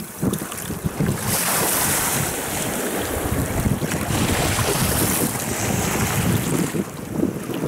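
Strong gusty wind buffeting the microphone, with river waves lapping and washing onto a stony shore.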